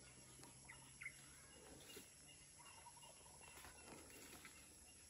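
Near silence: faint outdoor ambience with a few short, faint bird chirps.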